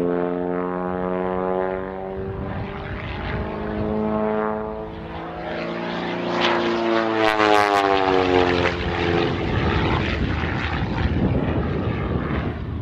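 Pitts Special aerobatic biplane's piston engine and propeller droning in flight, the pitch rising and falling as it manoeuvres, loudest and sweeping steeply down in pitch about seven seconds in.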